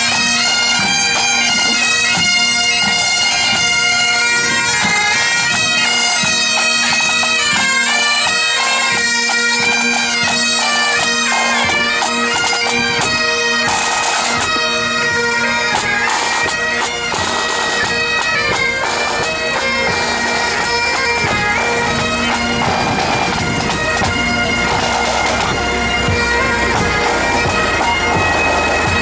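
A marching pipe band playing: Highland bagpipes sounding a tune over their steady drones, with the band's drums beating along.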